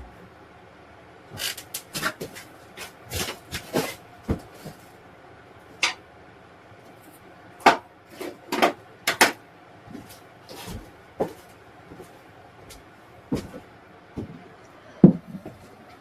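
A series of irregular sharp knocks and clacks, with hard objects being handled and set down, and a heavier thump near the end.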